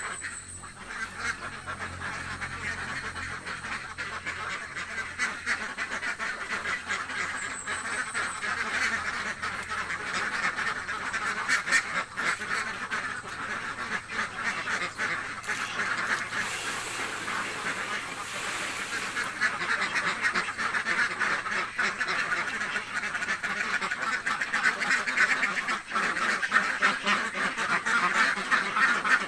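A flock of hungry ducks quacking continuously in a dense, overlapping chorus that grows louder over the first half and stays loud.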